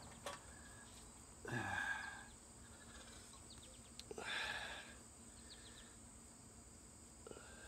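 Two soft rustles, each under a second, of a cloth rag wiping dripping oil from around a mower engine's drain plug, over a faint steady high-pitched background tone.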